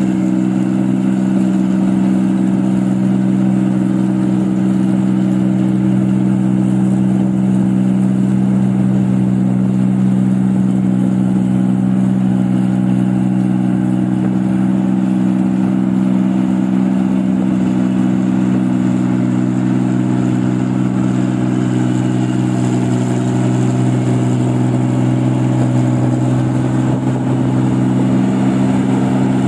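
New Holland 8060 combine harvester's diesel engine running steadily under harvesting load as it cuts rice, a loud, even exhaust drone with no change in speed.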